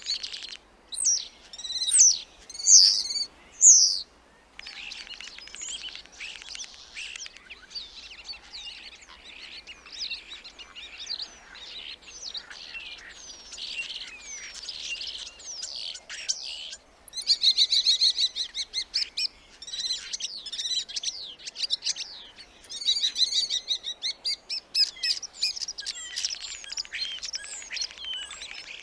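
Starling song: a few loud, separate whistled phrases at the start, then a steady stream of chattering clicks, chirps and whistles. About 17 seconds in there is a short break, followed by a fast rattling run.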